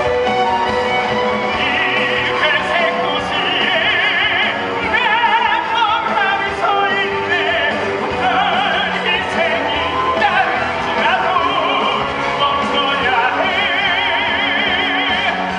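Live musical-theatre song: a solo singer holding long, strongly vibrato notes over orchestral accompaniment.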